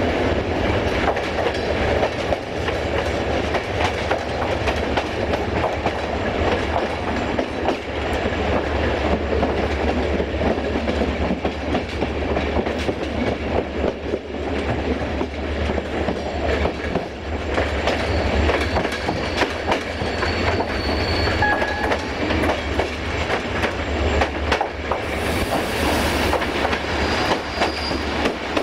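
Passenger train running through a station yard, heard at an open coach window: the coaches' wheels clickety-clack over rail joints and points over a steady low rumble. A couple of short, high wheel squeals come in the second half.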